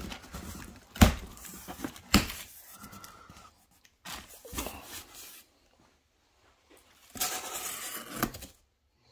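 Cardboard shipping-box flaps being folded open and handled, with plastic air-pillow packing rustling in between. Two sharp knocks, about one and two seconds in, are the loudest sounds.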